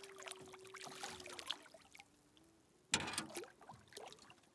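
A hooked pike thrashing and splashing at the water's surface, with one sharp, loud splash about three seconds in. Behind it a wolf howls, a long steady note that drops lower about a second and a half in and then fades.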